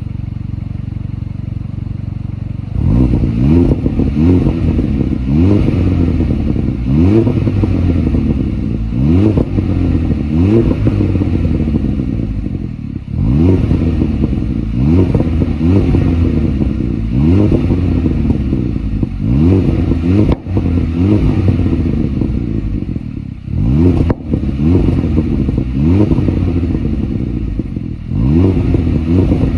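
Kia Ceed GT's 1.6-litre turbocharged four-cylinder engine idling briefly, then revved in repeated short throttle blips, about one every second and a half, each rising and falling in pitch. A couple of sharp cracks come through in the second half.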